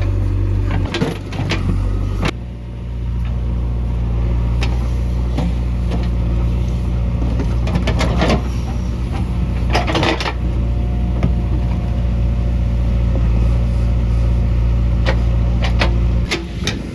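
Heavy diesel engine of a backhoe loader or tractor running steadily under load, with scattered short knocks and clatters. The engine note changes abruptly about two seconds in and again near the end.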